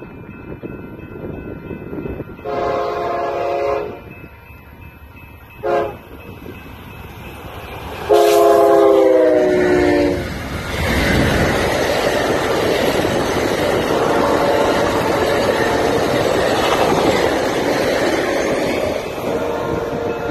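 Amtrak passenger train sounding its horn as it approaches: a long blast, a short one, then a long blast whose pitch drops as the locomotive passes. The train then rushes by close at hand with a loud, steady rumble of the cars on the rails.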